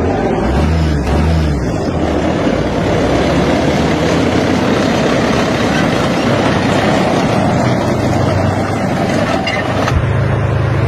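Steady engine and road noise of a moving vehicle driving along a road, with one sharp knock near the end.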